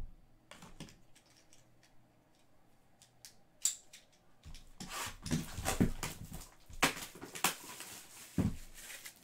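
Clear plastic shrink wrap being torn and crinkled off a sealed box of trading cards: a few light clicks, one sharp snap a little before the halfway point, then about four seconds of dense crinkling as the wrap is pulled away.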